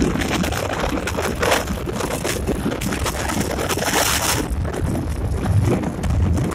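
Motor scooter on the move: wind buffeting the microphone over the engine and road rumble, with a brief rush of hiss about four seconds in.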